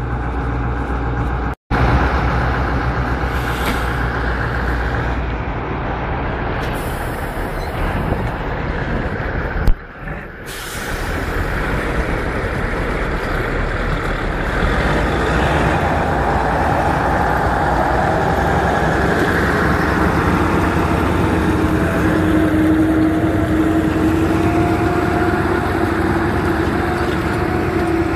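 Kirovets K-700 tractor diesel engines running under load while towing through mud. From about halfway through, a steady whine rises slightly in pitch over the engine noise. The sound cuts out briefly twice, near the start and about ten seconds in.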